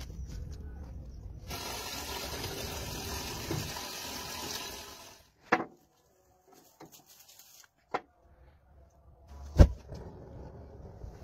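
Water running for about three seconds, then stopping suddenly. Three sharp knocks follow, the last and loudest a few seconds later.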